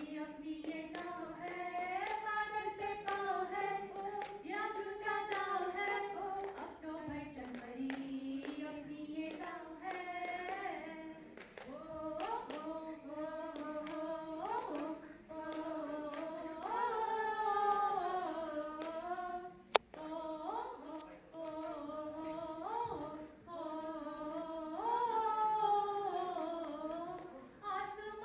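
Two women singing a song together into microphones, a continuous melody through the PA. A single sharp click cuts in about two-thirds of the way through.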